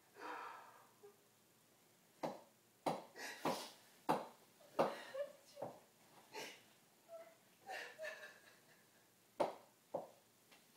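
Short breathy bursts of excited voices, gasps and exclamations, coming every second or so, mixed with a few sharp knocks.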